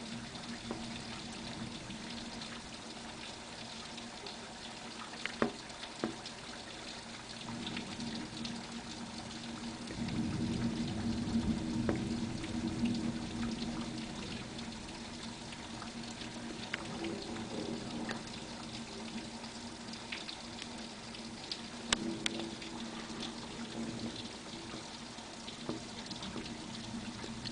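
Rain falling steadily, with a few sharp taps of drops or drips along the way. About ten seconds in, a low rumble of thunder swells for a few seconds and fades back under the rain.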